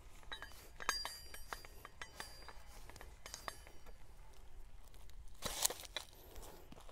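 Steel wrenches and rod clinking at the threaded joint of a dynamic cone penetrometer as its hammer is unthreaded from the rod. Sharp metallic clinks come in quick strings, with a louder clank about five and a half seconds in.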